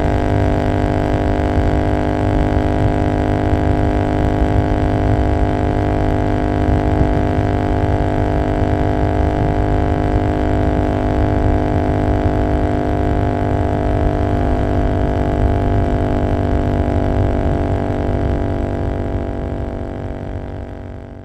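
Royal Enfield Continental GT 650's parallel-twin engine running at a steady highway cruise through an Emgo Hooligan exhaust with no dB killer, an even drone at constant revs. It fades out over the last few seconds.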